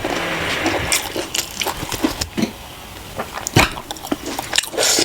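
Eating close to the microphone: a wet slurp in the first second, then chewing with scattered sharp clicks and smacks.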